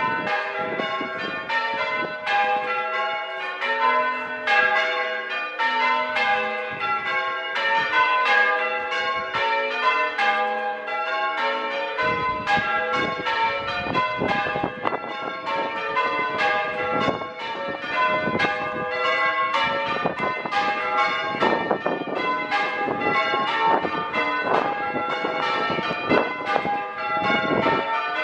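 A ring of six church bells, with a tenor of 8-3-22 cwt tuned to G, being rung in change ringing: a fast, unbroken sequence of bell strikes.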